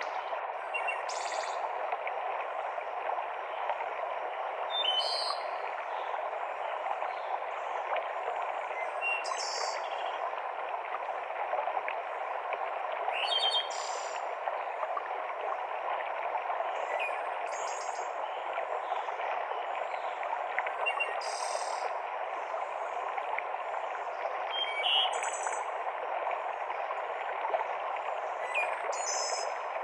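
Mountain stream cascading over rocks in a steady rush, with a bird repeating short, high calls about every four seconds.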